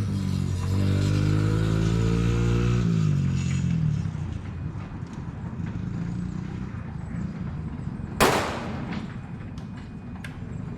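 Can-Am engine running at a steady pitch, its note dropping and fading away about three seconds in. About eight seconds in comes a single loud, sharp bang, followed by a few fainter clicks.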